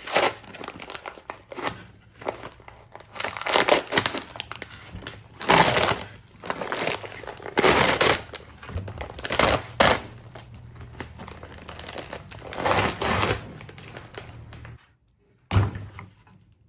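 Peel ply being torn off a freshly cured carbon-fibre mudguard: a string of irregular tearing, crackling pulls with short pauses between them, and one last short tear near the end.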